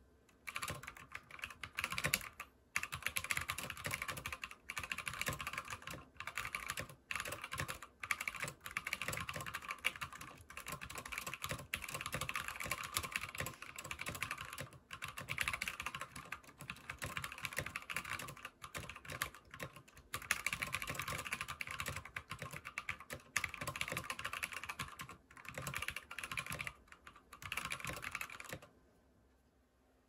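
Fast typing on a custom GK61x aluminium 60% mechanical keyboard with lubed NovelKey Cream linear switches, lubed and clipped stabilizers and white blank keycaps. The keystrokes come as a rapid, continuous clatter in long runs broken by short pauses, and they stop a little over a second before the end.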